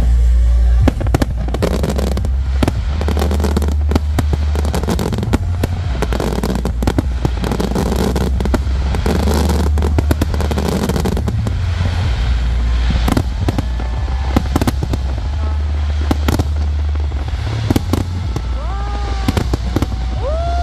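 Fireworks show: aerial shells bursting in quick succession, many sharp bangs and crackles over a steady low rumble.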